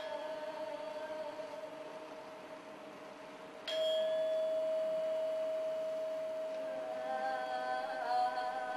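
Performance music: a steady held tone, then a metal bell-like instrument struck sharply about four seconds in, ringing on as a pure sustained note. A wavering voice joins in from about seven seconds.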